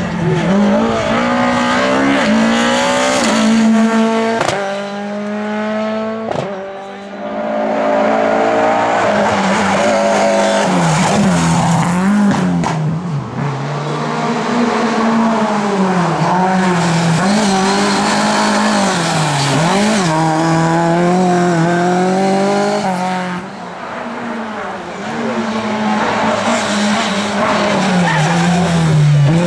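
Lada race cars' four-cylinder engines revving hard, the pitch climbing through each gear and dropping sharply on shifts and lifts, again and again. Tyres squeal as the cars take the corners.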